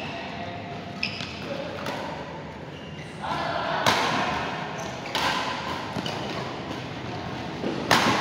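Badminton play in an echoing hall: several sharp racket hits on a shuttlecock spaced a second or more apart, with short squeaks of shoes on the court and voices in the background.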